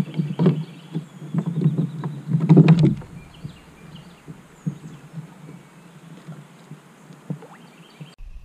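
Bumps and knocks against a plastic fishing kayak's hull as a landed smallmouth bass is handled on board. They are loud and dense for about the first three seconds, then thin out to scattered light clicks.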